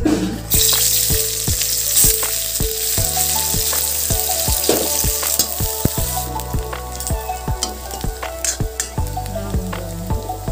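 Sliced onions dropped into hot oil in a steel kadai, frying with a loud sizzle that starts about half a second in, stirred with a metal spatula. Background music with a steady beat plays underneath.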